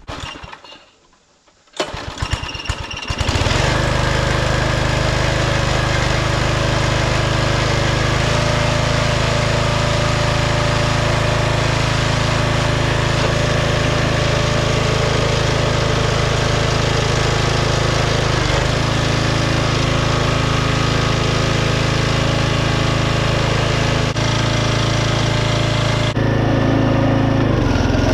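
Small gas engine of a log splitter starting, sputtering briefly about two seconds in, then catching and running steadily while it drives the hydraulic pump for a leak test of the repaired fitting. The tone shifts slightly near the end.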